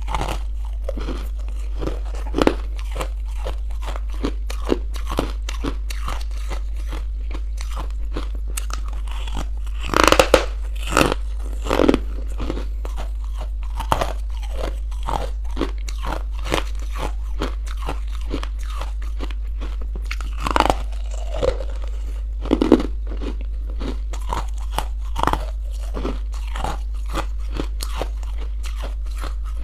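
Close-up crunching and chewing of crunchy buckwheat chunks: a steady run of small crackling crunches, with louder bites about ten and twenty seconds in. A steady low hum lies underneath.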